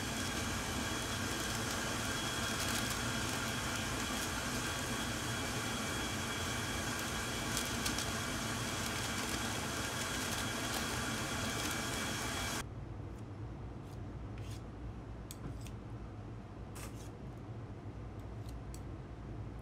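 Steady hum of kitchen equipment and ventilation with a few light handling clicks. About two-thirds of the way through it cuts to a quieter room with scattered light clicks and taps.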